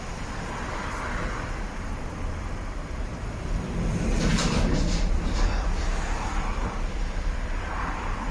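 Low rumble of a Volkswagen Golf Mk7 rolling slowly in queued traffic, engine and tyre noise heard inside the cabin. There is a louder swell of hissing noise about four to five seconds in.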